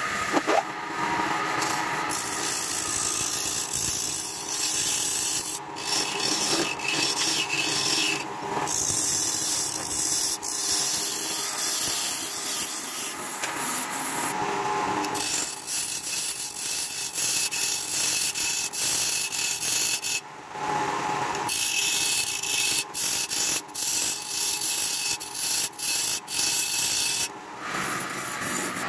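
Wood lathe turning a wooden ring blank while a hand-held turning tool cuts into it: a steady scraping hiss of wood being shaved, broken by a few brief pauses when the tool is lifted off, over the hum of the lathe motor.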